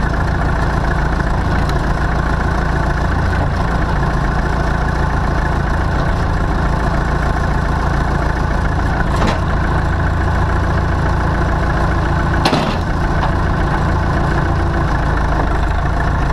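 Massey Ferguson 165 tractor engine idling steadily, with a couple of brief clicks partway through.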